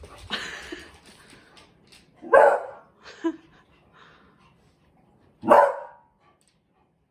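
A dog barking during play: four short barks, the loudest two about two and a half and five and a half seconds in.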